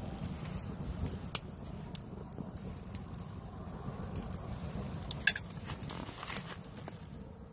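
Campfire crackling: scattered sharp pops, the loudest a little after five seconds in and another about a second and a half in, over a steady low rumble.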